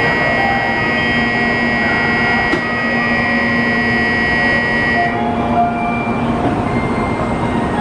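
Shinkansen station departure bell: a steady electronic ring of several pitches sounding together, starting abruptly and cutting off about five seconds in, over the low hum of the waiting train.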